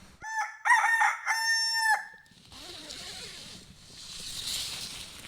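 Rooster crowing once, a few short notes ending in one long held note, followed by a faint steady hiss.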